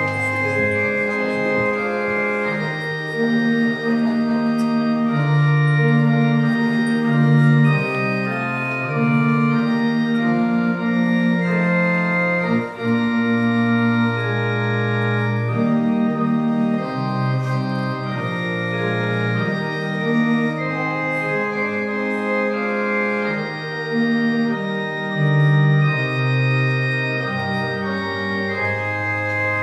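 Organ playing slow music of sustained chords that change every second or two, with held bass notes moving underneath.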